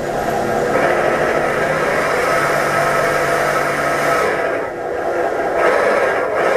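Simulated engine sound from an RC scale truck's electronic sound module, played through its small onboard speaker, running steadily with two short drops in level near the end.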